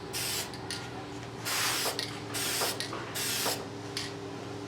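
Aerosol spray can of trim and bumper paint hissing in several short bursts, about one and a half seconds apart, as light coats are sprayed onto plastic trim.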